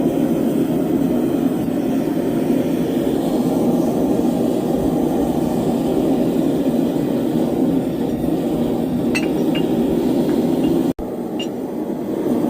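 Blacksmith's forge running with a steady rush, with a few light metal clinks about three-quarters of the way through and again near the end.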